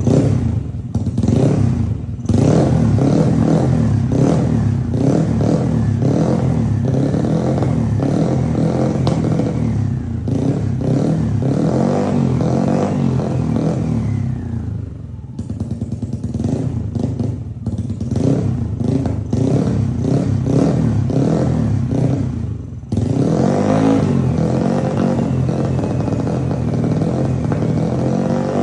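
Modified Yamaha Aerox scooter's single-cylinder engine running on its stand for a warm-up, the throttle repeatedly opened and eased off. The revs jump sharply about two seconds in, fall back toward idle around the middle, and pick up suddenly again near the end.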